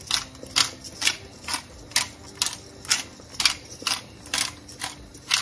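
Bottled pepper grinder being twisted back and forth by hand, grinding pepper in a steady rhythm of rasping clicks, about two strokes a second.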